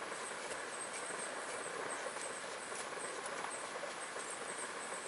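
Quiet outdoor ambience: a steady low hiss with faint, high insect chirping running through it.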